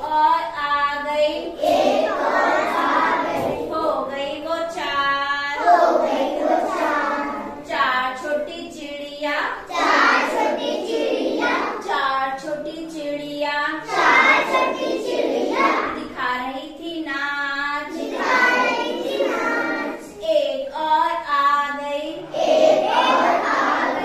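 A group of young children singing a Hindi counting rhyme together in unison.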